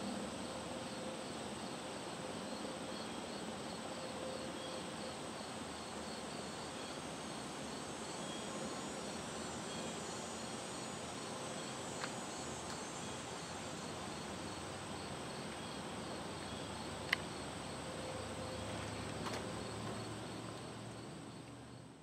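Outdoor ambience with insects chirping in a steady rhythm of about three chirps a second over a faint steady hiss. A single sharp click comes near the end, and the sound fades out at the close.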